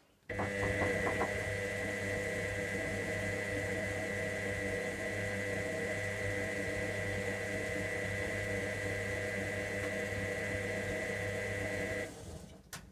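Electra AWF683 washing machine running steadily, with a low hum and a high whine, partway through a 95° boil wash; it starts just after the start and cuts off suddenly about twelve seconds in.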